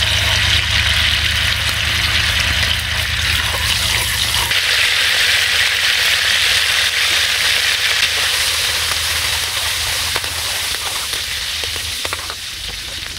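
Hot oil sizzling in a wok as chopped garlic and chili fry in it, with a metal spatula ticking against the pan now and then. The sizzle is steady and eases a little near the end.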